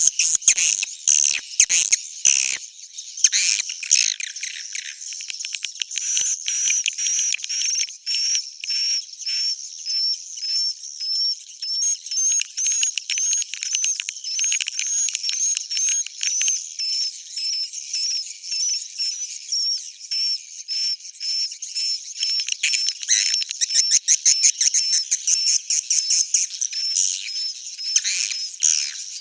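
Edible-nest swiftlet calls from a 'suara inap' roosting lure recording, the kind played in swiftlet houses to get birds to stay and nest. It is dense, high-pitched twittering with rapid clicky trills and a regular run of short chirps about twice a second.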